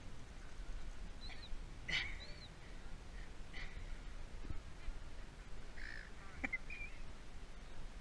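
Silver gulls giving short, scattered squawking calls, with a cluster about two seconds in and another around six to seven seconds, over a steady low background rumble.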